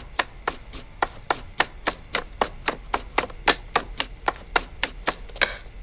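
Kitchen knife chopping onions on a wooden cutting board, a steady run of sharp strokes at roughly four a second.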